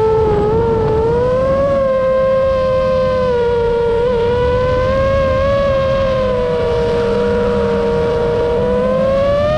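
FPV quadcopter's brushless motors and propellers whining steadily, the pitch sagging and climbing with the throttle and rising near the end, with wind rumbling on the onboard camera's microphone.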